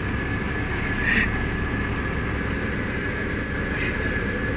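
Fishing boat's engine running with a steady low rumble and a faint, steady high whine over it.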